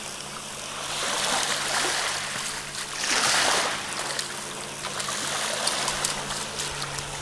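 Small waves washing on a sandy shore and a hooked fish splashing at the surface as it is reeled into the shallows, with the loudest surge of water about three seconds in.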